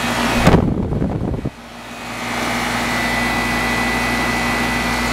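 1999 York Olympian 3.5-ton air conditioner condensing unit running with its Bristol reciprocating compressor and condenser fan: a steady hum with a held tone. About half a second in, a low rumble on the microphone covers it for about a second, then the sound goes briefly dull before the steady hum comes back.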